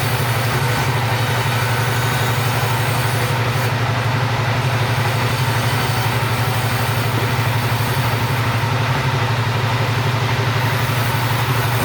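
Chainsaw engine running at a steady speed with an even, unbroken drone.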